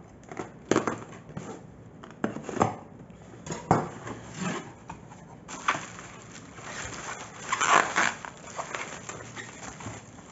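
Cardboard packaging being handled: irregular knocks and rubbing, with a louder scraping stretch about three-quarters of the way through.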